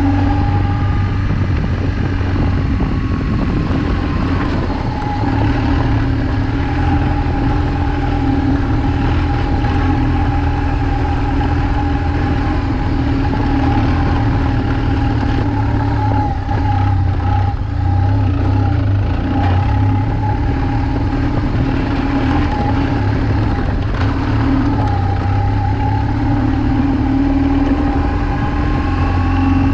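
BMW R1200GS motorcycle's flat-twin boxer engine running steadily under way, its pitch shifting slightly with the throttle.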